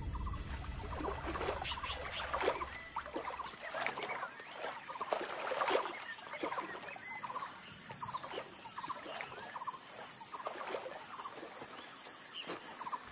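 Short, chattering animal calls repeated irregularly, many in quick succession, over a low steady hum that stops about three and a half seconds in.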